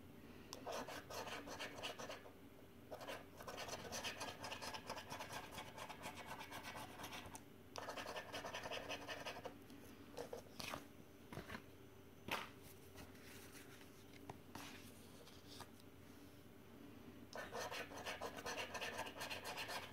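Coin scratching the coating off a paper scratchcard: bursts of rapid scraping strokes broken by short pauses, with a quieter spell of lighter strokes in the second half before steady scratching resumes near the end.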